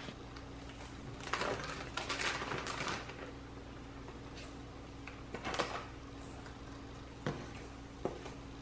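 Spatulas stirring and scraping through dry brownie and cookie mix in stainless steel mixing bowls, in intermittent scraping spells with a few light clicks of spatula against the bowl, over a steady low hum.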